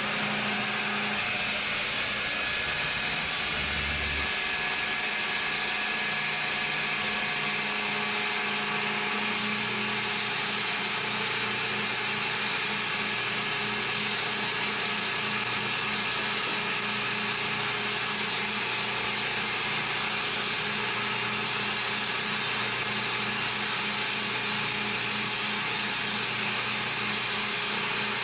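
CNC milling machine running steadily, a constant machine hum over a hiss, taking on a regular pulsing after about nine seconds.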